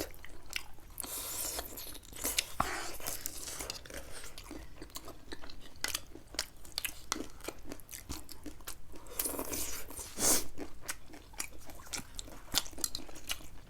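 Close-miked mukbang eating: a person chewing and crunching food, with many small sharp mouth clicks and a louder, longer noisy stretch around nine to ten seconds in.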